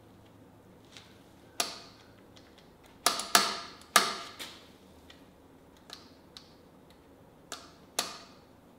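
About seven sharp clicks with short ringing tails, in irregular groups. They come from the ATV's handlebar throttle and cable adjuster being worked and released while the throttle cable free play is set.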